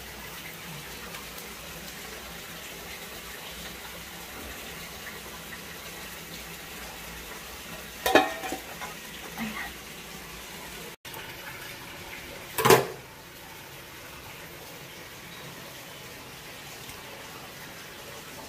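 Two short clatters of kitchenware over a steady low hiss, about eight and about twelve and a half seconds in: the stainless steel pot lid and a dish knocking on metal.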